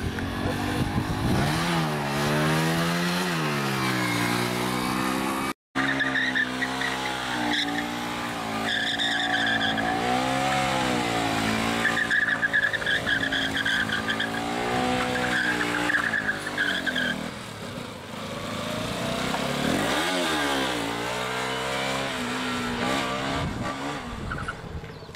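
Motorcycle engines revving up and down over and over during stunt riding, with tyres squealing several times in the middle as a bike spins in circles on the asphalt.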